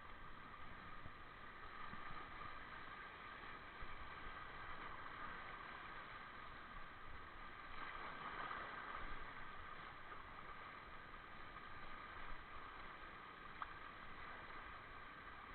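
Faint, steady wash of sea waves and wind around shore rocks, with a single small click near the end.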